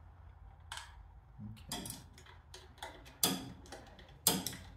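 A 1/2-inch wrench clicking and clinking on the nuts that hold the Ford Model A's carburetor to the intake manifold as they are loosened: a few short, irregular metallic clicks, the sharpest about three and four seconds in.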